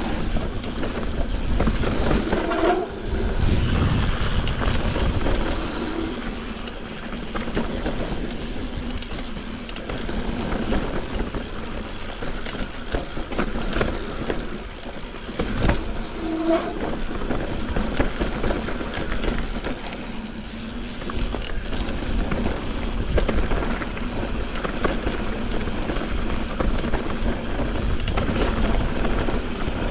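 Mountain bike riding down a dirt trail: tyres rolling and rattling over dirt and stones, with the bike clattering over bumps. There is a sharp knock about halfway through and a couple of brief squeaks.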